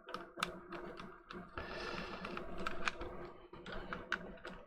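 Scattered small plastic clicks and taps of a DualSense controller being handled and taken apart, with a brief scraping rustle about two seconds in.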